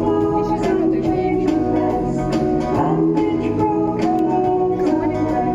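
Background music with a steady beat, plucked guitar-like instruments and some singing.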